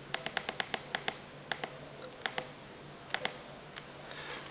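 Pushbuttons on a homemade Arduino scoreboard clicking as they are pressed again and again, each press adding one point to the score. A quick run of sharp clicks comes first, then a few slower pairs.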